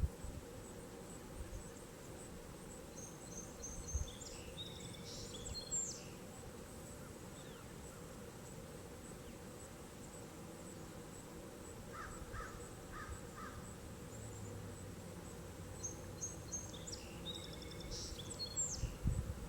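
Outdoor summer ambience. A steady, high insect buzz pulses at an even rate throughout, and a songbird sings the same quick, warbling phrase twice, about three seconds in and again about sixteen seconds in. A few short, lower calls come around twelve seconds in.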